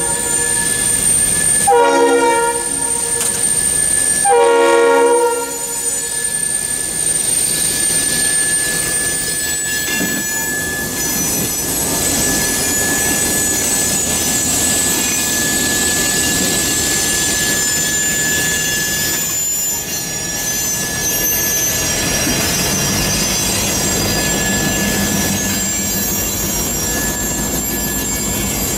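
Norfolk Southern diesel freight locomotives sound a multi-tone air horn in two blasts, each about a second long, in the first five seconds. The train then rolls past on a curve, wheels squealing with steady high tones over the rumble and clatter of covered hopper cars.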